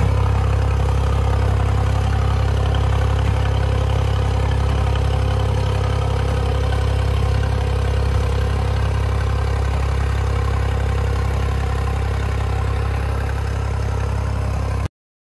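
New Holland 5620 tractor's diesel engine running steadily at a constant speed, then cutting off abruptly near the end.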